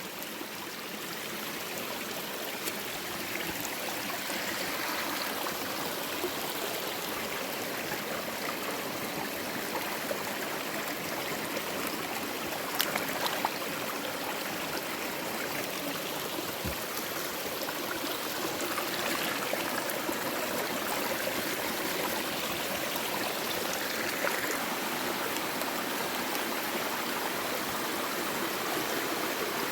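Creek water running steadily, with a couple of faint knocks about halfway through.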